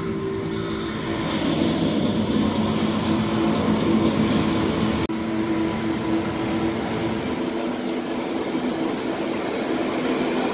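Large Claas tractor's diesel engine running as it drives slowly, a steady heavy rumble with a low hum that echoes in a big hall, broken by a short dropout about halfway.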